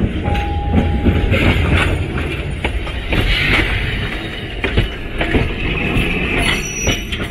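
Kagoshima City streetcar passing close by, its steel wheels rumbling and clacking over the rail joints and switch points, with a rough hissing squeal from the wheels on the curved track. A short steady tone sounds for about a second just after the start.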